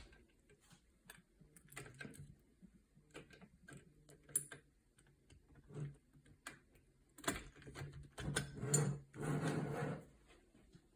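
Small clicks, taps and scraping of metal lock parts being handled and fitted, growing louder in the last few seconds.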